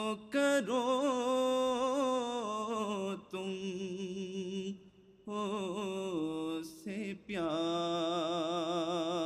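A man chanting an Urdu nazm (devotional poem) unaccompanied, in long held melodic notes with a wavering vibrato. He sings about four phrases with short breathing breaks between them.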